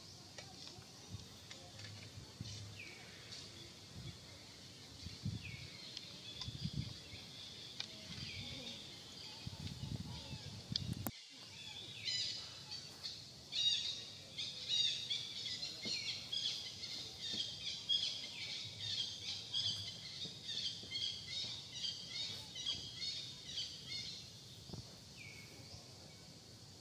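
Forest ambience with birds chirping: short high falling notes repeat throughout, and a dense run of rapid high chirps starts about twelve seconds in and fades near the end. A few soft low rustles come in the first half.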